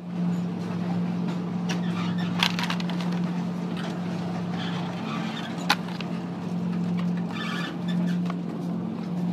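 Steady low hum of an open refrigerated supermarket display case. Two sharp clicks and some rustling come from handling a carton and a plastic shopping basket.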